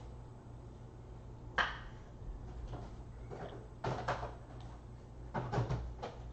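A few light clicks and knocks: one sharp click, then two short clusters of knocks, over a steady low hum.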